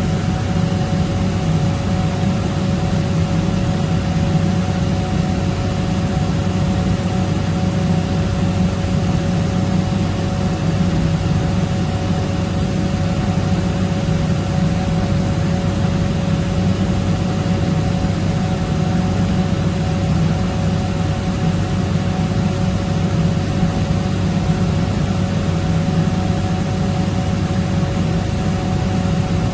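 Atlas Copco GA160VSD oil-injected rotary screw air compressor running steadily: a low, even hum with two steady whining tones above it.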